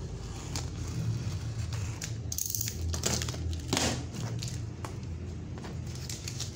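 Cardboard shipping box being opened by hand: packing tape slit with a utility knife and torn, the cardboard flaps scraping and crinkling, with several sharp tearing sounds a couple of seconds in.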